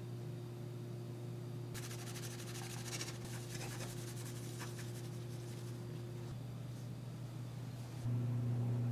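Pink plastic coin-chocolate molds handled on a wooden board: a couple of seconds of dense scratchy rubbing and clicking about two seconds in. A steady low hum runs underneath and gets much louder near the end, a refrigerator running.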